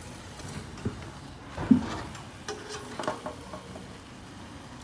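A metal spatula scraping and knocking against a wok as food is stirred, with a faint sizzle of frying underneath. The knocks come irregularly, the loudest a sharp clank a little before the middle.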